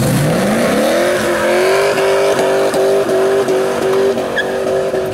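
An engine revving up quickly over about the first second, then held at a steady high speed with a slight regular flutter.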